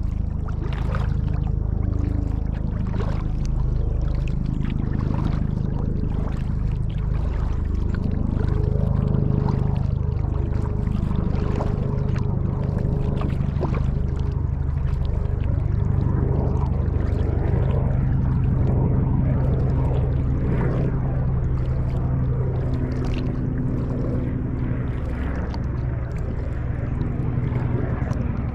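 Water sloshing and splashing around a kayak, with frequent small knocks and a steady low hum underneath.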